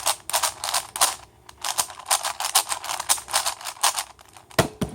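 Plastic clicking and clacking of a ShengShou 5x5 puzzle cube being turned and handled, a rapid, irregular run of clicks with a louder knock near the end.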